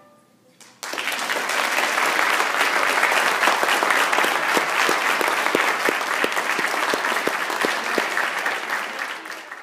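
Audience applauding. It breaks out about a second in, right after the last handbell chord has died away, and stops abruptly near the end.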